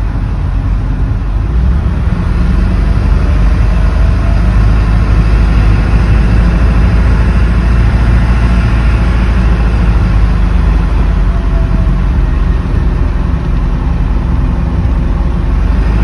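1999 Ford Super Duty's 7.3 L Power Stroke turbodiesel V8 driving the truck along at road speed, heard from inside the cab as a steady low drone mixed with road noise.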